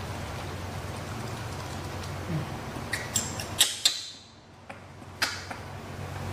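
A plastic baby bottle being handled: a few light clicks and taps, bunched around the middle, as it is passed over and gripped. A steady low hum runs underneath.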